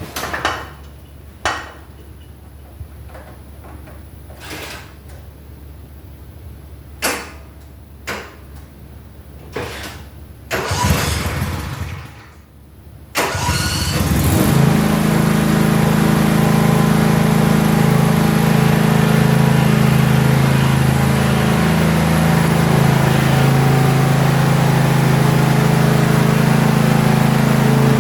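A few scattered knocks and clunks, then a Toro lawn mower engine is cranked briefly and starts about halfway through, settling into a steady run.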